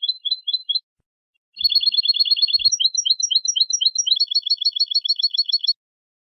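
European goldfinch song: rapid trills of high, clear notes, a short run, a brief pause, then a longer phrase that shifts through several trill types before stopping abruptly.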